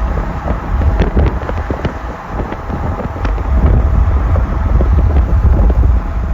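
Steady low rumble of a moving train, with wind buffeting the microphone and scattered sharp clicks.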